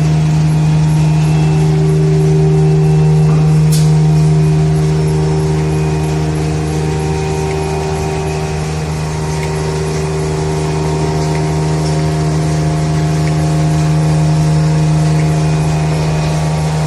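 V-fold hand towel folding machine running steadily: a constant loud hum with several higher steady tones over it, and one brief sharp tick about four seconds in.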